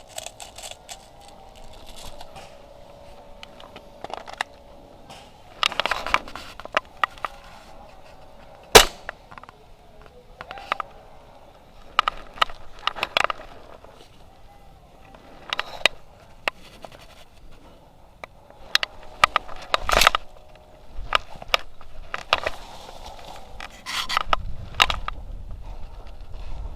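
Airsoft guns firing sporadic single shots and short strings of sharp cracks. The single loudest crack comes about a third of the way in.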